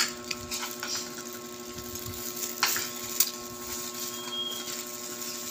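Eating by hand in a plastic glove: chewing and glove crinkling with a few sharp clicks, over a steady electrical hum.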